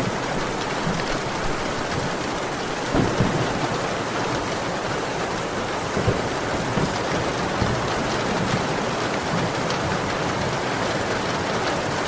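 Heavy rain falling steadily, a dense even hiss, with a few brief low knocks standing out, about three and six seconds in.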